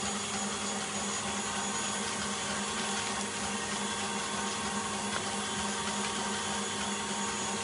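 Steady whirring hum of a running kitchen appliance, even in level, with a constant low tone underneath.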